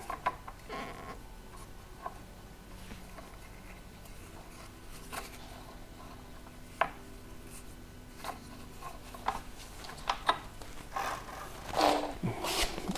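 Handling noise from folding bicycle pedals being picked up and worked: scattered sharp clicks with light rubbing and rustling between them, busier in the last couple of seconds.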